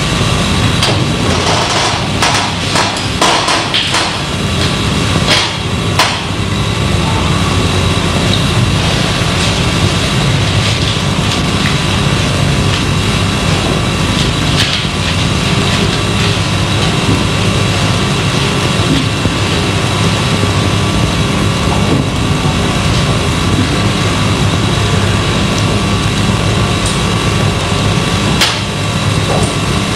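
Steady hiss and hum of an old analog film or tape soundtrack, with a few faint whining tones held throughout. Scattered sharp knocks come mostly in the first few seconds and once more near the end.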